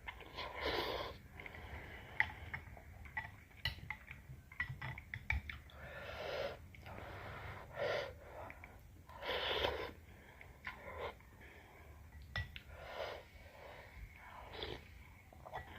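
Slurping soupy noodles and broth: about half a dozen separate slurps a second or two apart, with small clicks and mouth sounds of chewing between them.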